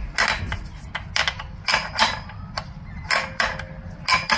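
Irregular sharp metallic clicks and clacks, about a dozen, some in quick pairs, as the parking lock lever and rod are fitted by hand into a CVT transmission case.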